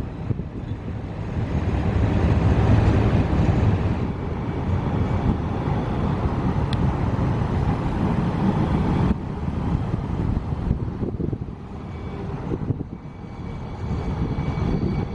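Low rumble of vehicles on the street, with wind buffeting the microphone, as a police SUV and a Kinki Sharyo light rail vehicle approach. The noise drops off suddenly about nine seconds in.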